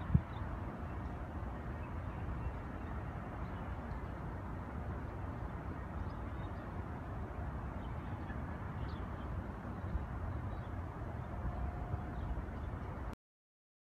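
Steady low rumble of outdoor city ambience, distant traffic heard from a high vantage point, cutting off suddenly near the end.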